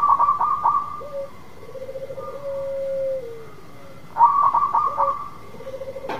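Zebra doves (perkutut) cooing: a rapid stuttering run of higher notes at the start and again about four seconds in, alternating with a lower rolling coo that ends in a long note sliding down. A single sharp click comes near the end.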